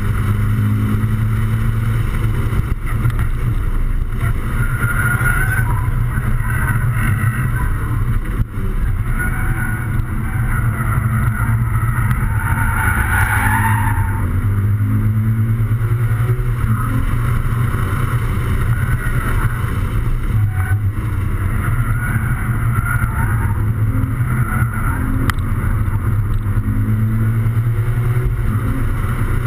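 Toyota 86/Scion FR-S's 2.0-litre flat-four engine pulling hard on track, heard from inside the cabin over road and wind noise. The steady low engine note eases for a few seconds around the middle, with a brief dip about eight seconds in, then comes back.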